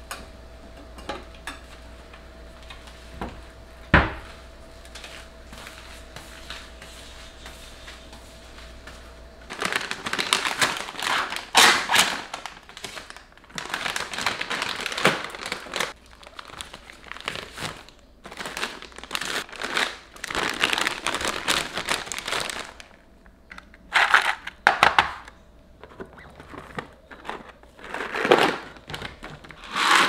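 Plastic food pouches crinkling and rustling in repeated bursts as they are handled and packed into a plastic storage basket. Before that, a quiet steady hum with a single sharp click.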